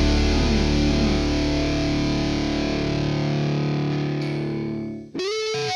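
Background rock music: a distorted electric guitar chord rings and slowly fades, then near the end a guitar starts a quick run of separate notes.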